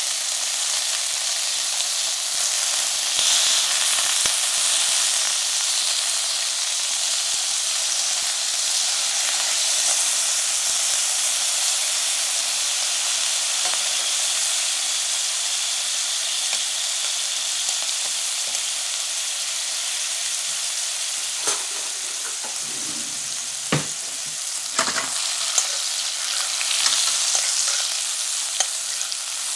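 Pork tenderloin medallions sizzling steadily as they sear in a pan with oil and melting butter. Several sharp clicks of utensils against the pan come in the last third.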